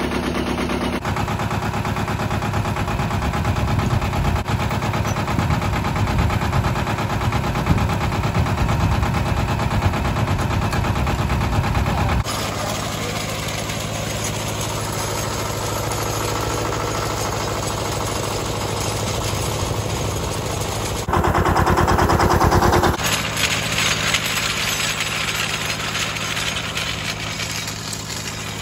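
Mitsubishi MT372 compact tractor's diesel engine running steadily with a clattering beat, as it pulls a steel chain drag harrow over gravel. The engine gets louder for a couple of seconds about three quarters of the way in, and a gritty scraping of the drag on the gravel follows.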